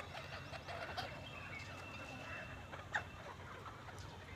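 A flock of free-range Sonali chickens clucking and chirping, many short overlapping calls. A single sharp click about three seconds in.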